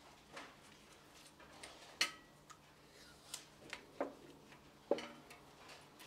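Faint, scattered light clicks and taps, about half a dozen, from hands working wires and a plastic terminal block at a wall-light bracket while wrapping insulation tape around it. The sharpest clicks come about two seconds in and about five seconds in.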